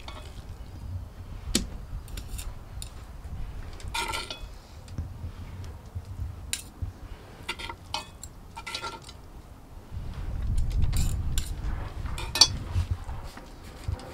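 A metal fork scraping and clinking against a cast-iron pan as pulled brisket is scooped out, in scattered irregular clicks. A low rumble swells for a couple of seconds around ten seconds in.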